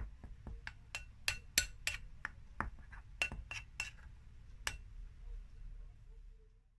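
Metal fork clinking against a glass mixing bowl while stirring dry flour mix: about a dozen sharp, irregular taps with a little ring to them, which stop about a second before the end.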